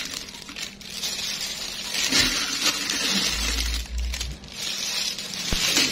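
Pieces of salted fish coated in black tapioca paste being placed by hand into a large glass jar, with handling noise and light knocks against the glass. A dull low bump comes about halfway through.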